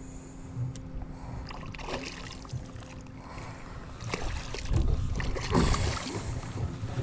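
Hooked freshwater drum (sheepshead) splashing and thrashing at the surface beside a small aluminium boat as it is played in, with water slapping the hull; the splashing starts about four seconds in and gets louder.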